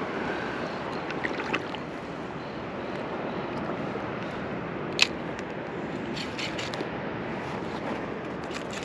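Steady wash of calm sea water lapping around a float tube, with a single sharp click about five seconds in and a few faint ticks from the rod and reel being handled.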